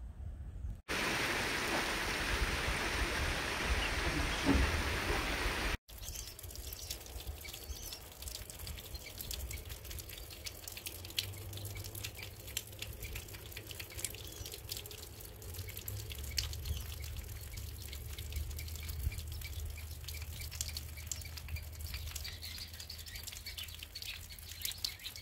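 Outdoor ambience at a tidal salt pond: an even rushing hiss for the first few seconds, cut off sharply, then wind rumbling on the microphone with many faint scattered ticks and clicks.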